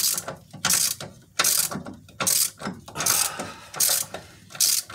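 Socket ratchet with a 15 mm deep-well socket clicking on each back-swing as a motor mount bolt is run down into a nut in the frame, about six strokes with a burst of clicks roughly every three-quarters of a second.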